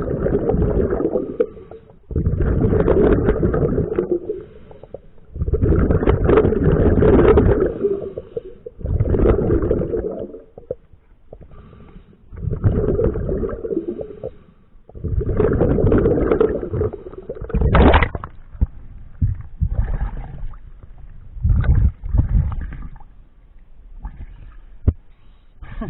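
Scuba diver's exhaled bubbles rushing out of the regulator underwater, in bursts about two seconds long that come roughly every three and a half seconds with the breathing. There is a short rising squeak about two-thirds of the way through, and shorter, irregular sounds near the end.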